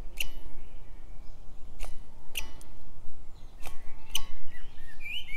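About five sharp taps as the plastic gas-checker probe is set against a steel 5 kg propane cylinder at different spots, each tap ringing briefly on the cylinder's metal. A bird chirps near the end.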